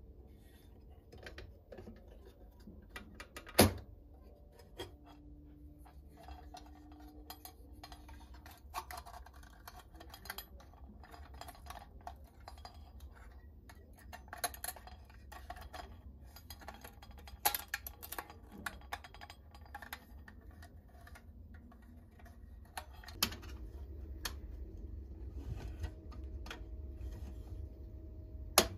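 Metal and glass clinks and rattles from an old oil hurricane lantern being handled as its wire frame and glass globe are worked loose: scattered sharp clicks, the loudest a few seconds in and another just before the end.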